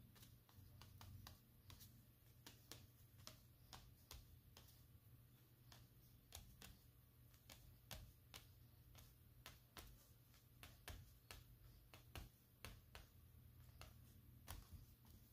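Faint, irregular light taps of an oil pastel stick dotting onto paper, a few taps a second.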